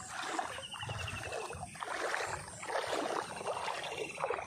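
Feet wading through shin-deep floodwater, with a swishing splash at each stride. A faint rapid trilling call sounds twice in the background.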